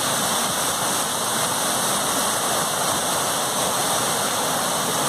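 Steady rushing of river water pouring over a dam.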